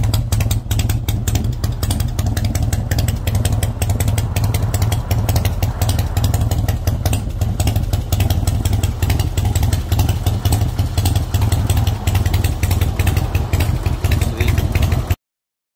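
Harley-Davidson Springer Softail's air-cooled V-twin running steadily through its fishtail exhaust, a low, fast, even pulsing. The sound cuts off abruptly near the end.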